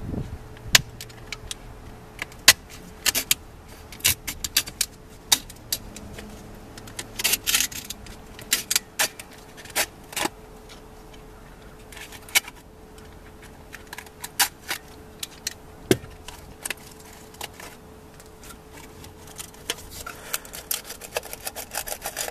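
Subwoofer being cut and pried apart by hand, with a blade working through the glued spider and dust cap: irregular clicks, scrapes and snaps of stiff paper and plastic, coming thicker near the end. A faint steady hum runs underneath.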